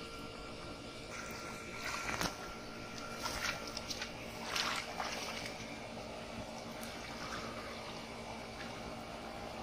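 Splashing in shallow muddy water, with a few short splashes about two, three and a half and five seconds in, as hands and a fish stir the water in and around a metal pot.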